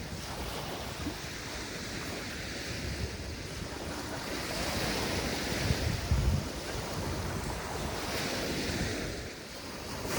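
Sea waves breaking and washing up on the beach, the wash swelling about halfway through and again near the end. Wind rumbles on the microphone.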